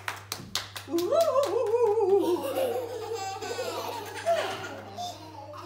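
A few claps, then a group of young children bursting into high-pitched laughter that fades off.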